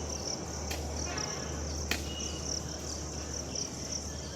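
Crickets chirping steadily in a high, pulsing trill, with two sharp knocks about a second apart and a low steady hum underneath.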